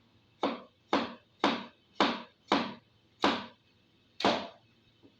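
Kitchen knife chopping vegetables on a cutting board: seven sharp strokes, about two a second, spacing out near the end.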